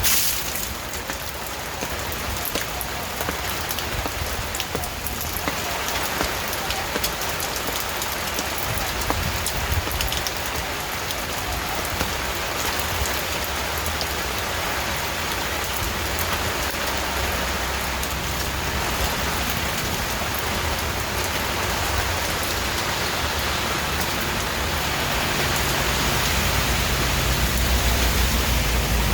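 Steady rain falling, with many individual drops heard hitting a surface. A low rumble of thunder builds near the end.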